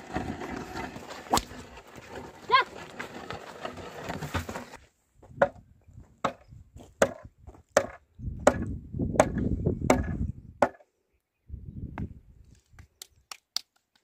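Pair of oxen pulling a wooden plough through dry soil: sharp woody knocks come a little faster than one a second, with stretches of low scraping in between. Before that, for a few seconds, an outdoor background carries a single knock and a short high call.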